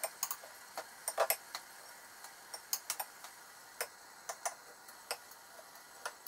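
Metal kitchen tongs clicking and tapping lightly and irregularly as meatballs are lifted off plates and dropped into the cookers' inner pots.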